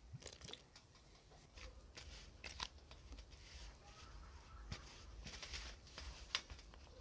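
Hand mixing flour and water into dough in a plastic bowl: faint, irregular scraping and rustling with a few sharper ticks.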